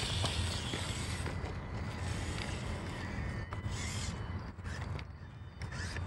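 Small electric motors and gear trains of 1/24-scale RC rock crawlers running, a thin steady whine with a few light clicks.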